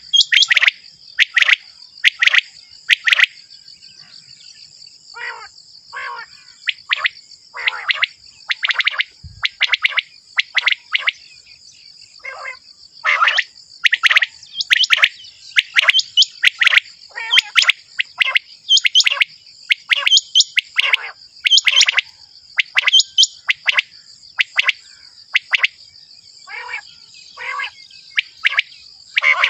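Common quail calling over and over: short, sharp notes that drop steeply in pitch, one or two a second with brief pauses, played as a hunting lure call. A steady high insect hum runs underneath.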